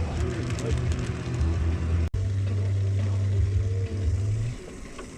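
Bass boat outboard motor running under way, a steady low drone. It cuts out abruptly for an instant about two seconds in, then drops off sharply about four and a half seconds in.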